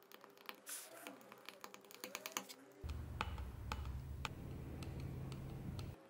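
A pointed hand tool scratching and tapping on a small steel block, making light, irregular clicks. A low hum comes in about three seconds in and stops near the end.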